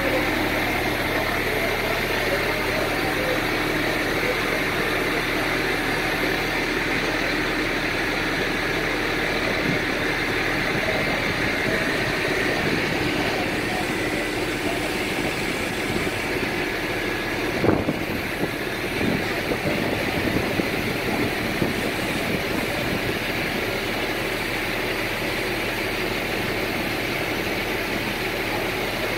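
Heavy diesel engine of the lifting crane or truck running steadily under a steady hum, with a single sharp knock about eighteen seconds in.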